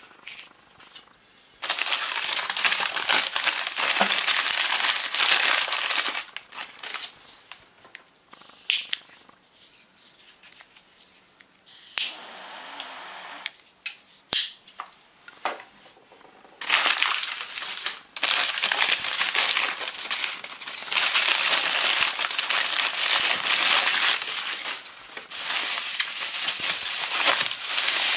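Crumpled paper packing rustling and crinkling as hands dig through a cardboard parcel. The loud rustling comes in several spells of a few seconds each, with quieter handling and small knocks between them. Plastic bubble wrap crinkles near the end.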